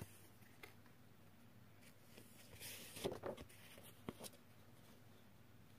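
Near silence with faint rustling of coloured paper being handled, and a couple of soft taps about three and four seconds in.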